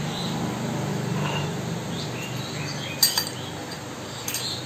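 A metal spoon clinks against a glass bowl and a steel mixer jar as mango pieces are scraped into the jar, with two sharp clinks about three seconds in and again a second later. Faint bird chirps sound in the background.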